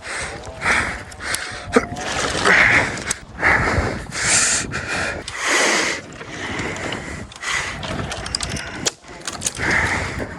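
A man breathing hard through the mouth from exertion: loud, irregular gasping breaths about once a second, with one sharp click about two seconds in.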